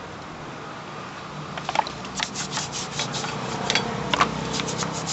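Brass wire brush scrubbing a metal part in quick back-and-forth strokes, starting about a second and a half in.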